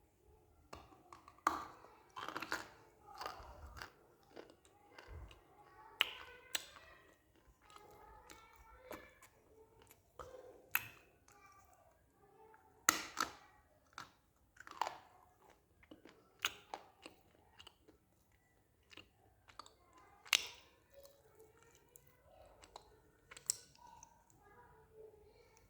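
Close-up biting and chewing of dry multani mitti (fuller's earth clay): irregular sharp crunches every second or two, with sticky mouth sounds between them.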